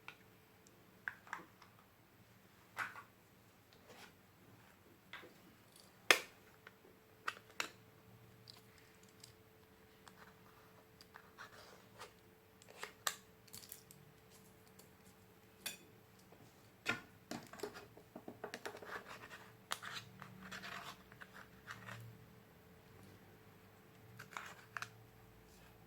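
Close-up handling sounds of slime making, with makeup and glitter being worked into the slime: irregular sharp clicks and taps and short scratching sounds. The loudest click comes about six seconds in, and a busier run of crackly scraping comes in the second half, over a faint steady hum.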